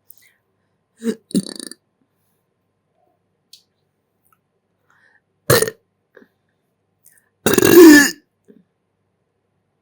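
A person burping: two small sounds about a second in, a short burp about five and a half seconds in, then a louder, longer burp with a wavering pitch near the end.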